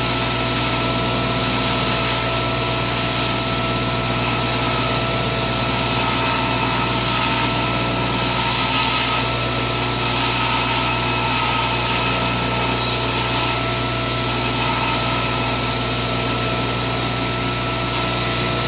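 Table saw running steadily, its blade shaving the edge of a wooden disc as the disc is turned on a nail pivot into the blade.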